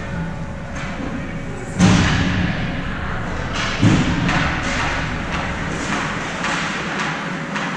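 Ice hockey rink boards struck twice, about two seconds apart, each a booming thud that echoes through the arena, the first the louder. Shorter scrapes and clacks of play run between them.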